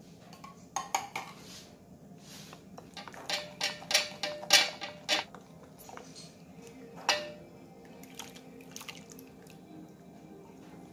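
Wooden spoon stirring a thick creamy mixture in a glass mixing bowl, scraping and knocking against the glass in irregular clicks. The clicks are loudest and most frequent about three to five seconds in.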